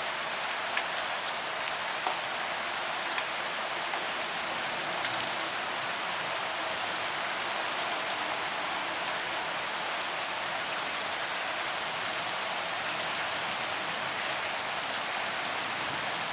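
Heavy rain falling steadily as an even hiss, with no thunder. A few louder single drops tick out in the first few seconds.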